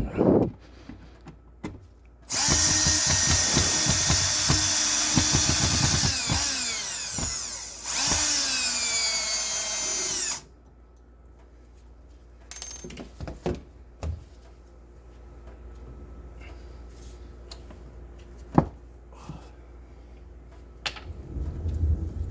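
Power drill running on a wall screw and anchor to remove it: one run of about five seconds, then a second of about two seconds, the motor's pitch falling as each run ends. A few light knocks follow.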